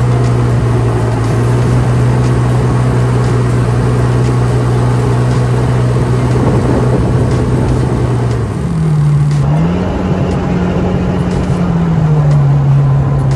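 Motor engine running steadily at speed, with wind and water noise. About eight and a half seconds in it eases off and then revs up to a higher pitch, and it settles back down near the end.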